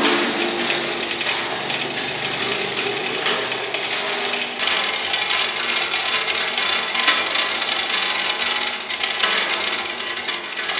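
Manual chain hoist being worked to lower a heavy steel propane tank: a steady metallic rattle of the hand chain running through the hoist, starting suddenly.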